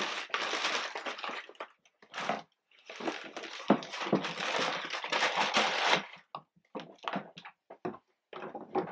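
Sheets of white wrapping paper rustling and crinkling as they are handled and pulled out of a sneaker box. Long stretches of rustling for about the first six seconds, then a few short separate rustles.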